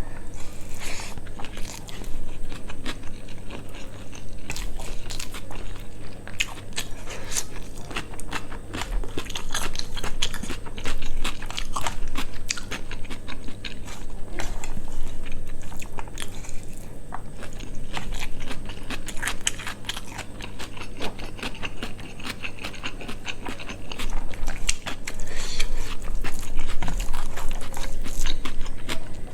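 A person chewing and biting close to the microphone, with many small irregular crunches and wet mouth sounds as quail meat, bones and rice are eaten, over a steady low hum.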